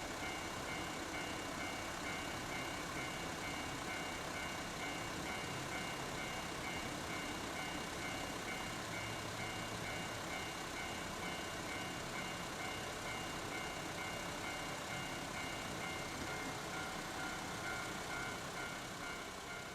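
Japanese railway level crossing's electronic warning bell ringing over and over in a steady repeating pattern as a train approaches the crossing.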